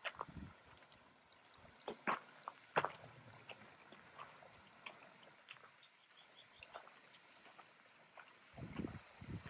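Footsteps on a rocky creek-side trail with a few sharp knocks and taps, over a faint trickle of creek water from a small waterfall. A short cluster of low thumps comes near the end.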